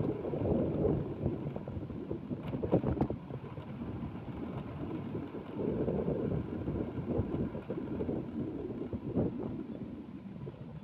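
Wind buffeting the microphone over the running engine and tyre noise of a motorcycle on the move, a rumbling noise that swells and eases. A few short knocks come about two and a half to three seconds in.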